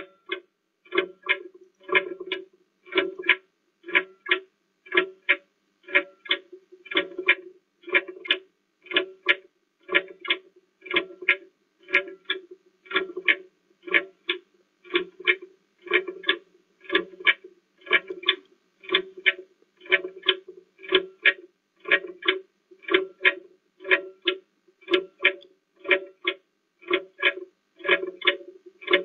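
Countdown-timer music: a short plucked-string note repeating evenly about twice a second like a ticking clock, marking a 30-second countdown.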